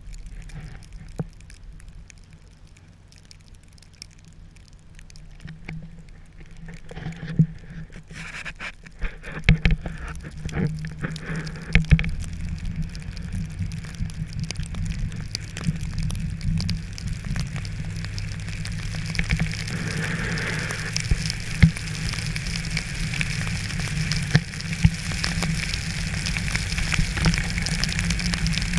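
Rain or sleet pattering on surfaces, a dense scatter of small ticks that grows louder about a third of the way in.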